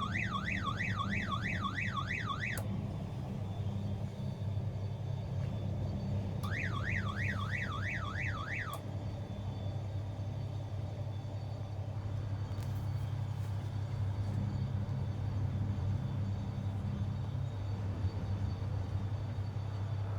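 A crane's wind alarm warbles rapidly up and down in two bursts of about two seconds each, one at the start and one about six seconds later. It warns that wind gusts are too strong for safe lifting. Under it the crane's engine drones steadily.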